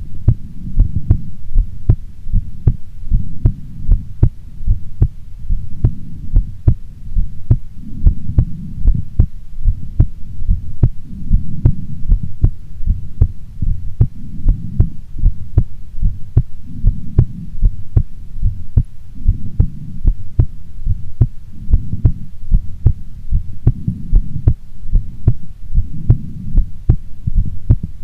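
A woman's heartbeat recorded close up, beating steadily and evenly over a constant low rumbling hum.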